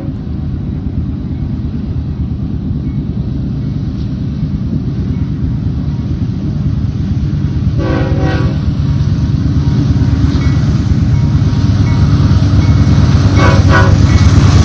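BNSF GE Dash 9 diesel locomotive approaching, its engine rumble growing steadily louder, sounding its horn: one blast about eight seconds in and two short blasts near the end.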